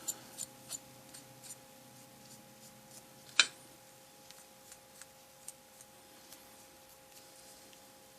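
Brush rubbing and dabbing at oil paint on a plastic scale model: faint scratchy strokes and small clicks, with one sharper tap about three and a half seconds in. A faint steady hum lies underneath.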